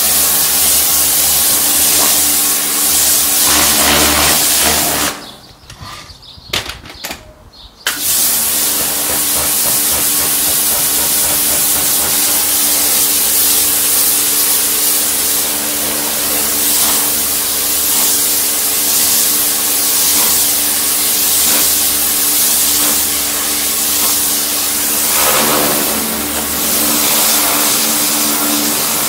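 Electric Kärcher pressure washer running, a steady motor hum under the hiss of its high-pressure spray jet. About five seconds in, motor and spray cut out for about three seconds, then start up again and run on steadily.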